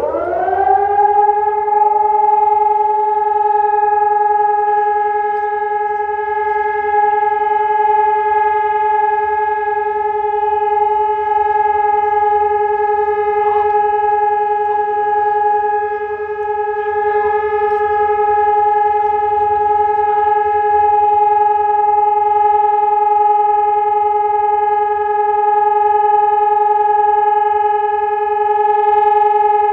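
ESp 750 Maestro electronic civil-defence siren sounding a continuous steady test tone: it slides up to pitch in the first second, then holds one unwavering note with many overtones. This is the siren test signal of the public warning system.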